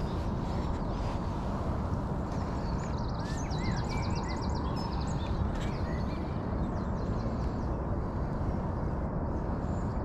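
Small birds singing and chirping over a steady low background rumble, with a fast run of repeated high notes about three to four seconds in.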